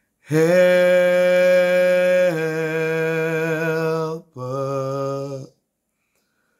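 A man singing unaccompanied in long held notes: one note held about two seconds, a slightly lower one held two more, then a short lower note that stops about a second before the end.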